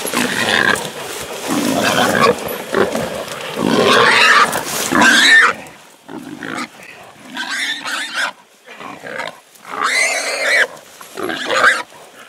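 Wild boar squealing while held by catch dogs. The squealing is loud and near-continuous for about five seconds, then breaks into shorter squeals about a second apart.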